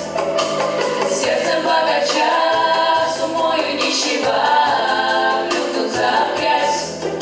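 Pop vocal ensemble singing in close harmony, a cappella, over a steady low bass line and a regular beat.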